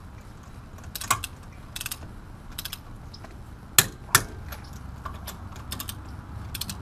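Click-type torque wrench ratcheting on wheel lug nuts, set to about 85 foot-pounds. Now and then a sharp click sounds as a nut reaches its set torque: once about a second in, then twice close together a little before four seconds.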